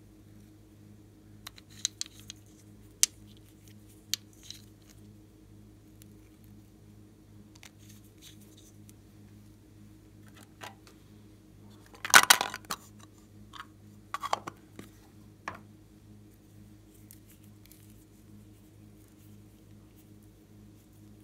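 Sporadic small clicks and taps from handling plastic glitter-glue and paint tubes and their caps over a glass tray of slime. A louder rustle lasting about half a second comes about twelve seconds in, and a low steady hum runs underneath.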